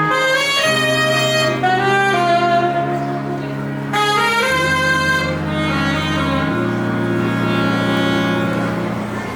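A live band playing an instrumental tune: a melody of held notes over a sustained lower part, the notes changing every second or so.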